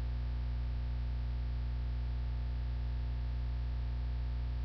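Steady electrical mains hum, a low buzz with several evenly spaced tones and a faint hiss over it, unchanging throughout.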